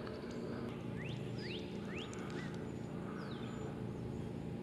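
A bird calling a few quick sweeping chirps about a second to two seconds in and once more a little after three seconds, over steady low background noise.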